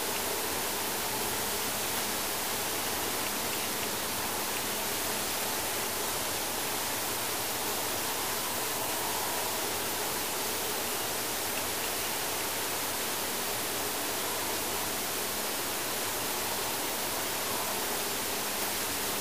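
Steady hiss of a recording turned up high. Beneath it are faint, drawn-out wavering tones: the faint humming sound that the recorder likens to a whale singing.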